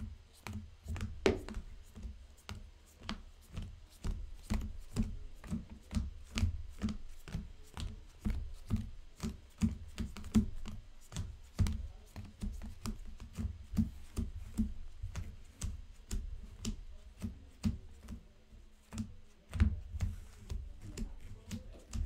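Hands handling and shuffling sleeved trading cards at a table: a steady run of quick taps and soft thuds, about two to three a second.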